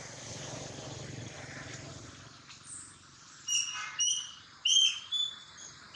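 A bird chirping: four short, high chirps in quick succession, starting about three and a half seconds in.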